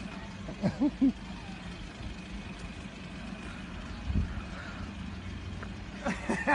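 A vehicle engine running steadily on the street, a constant low hum. A couple of short vocal sounds about a second in, and a person starts laughing in short, evenly repeated bursts near the end.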